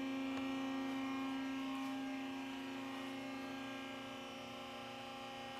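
Electric hydraulic power unit of a Titan SL-6600 mid-rise scissor lift running as it raises a car: a steady hum that eases off slightly after about two seconds.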